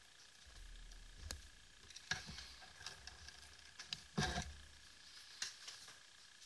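Faint scattered clicks and handling knocks from pliers and fingers on a metal flashlight body and its side switch, with one louder knock about four seconds in.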